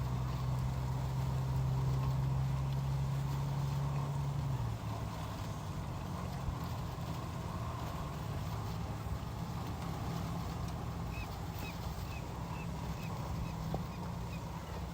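An engine running steadily with a low hum that shifts about five seconds in. Near the end a bird calls in a quick series of about nine short, high notes, roughly three a second.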